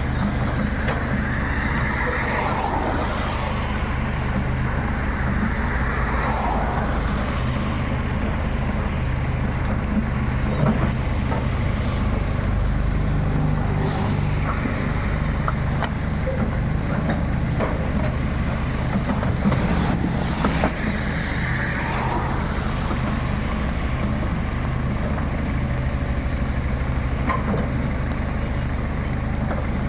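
Excavator's diesel engine running steadily, with a few tones rising and falling in pitch every several seconds and scattered sharp knocks.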